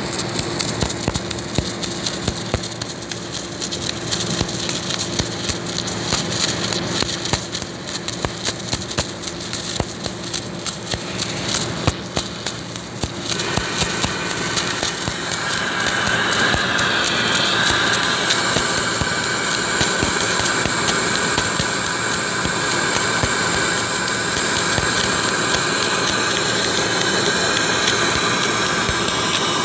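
Submerged arc welding on a stainless steel plate seam: the welding rig runs with a steady hum and crackling clicks. About 13 seconds in, a louder steady hiss with a high whine joins and carries on.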